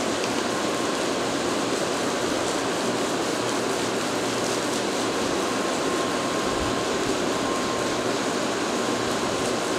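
Tokaido Shinkansen train running through the station with a steady rushing noise, faint whine above it in places.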